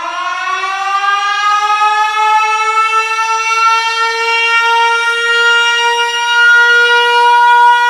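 Air-raid-style siren tone winding up in pitch over the first couple of seconds, then holding one steady pitch and slowly growing louder.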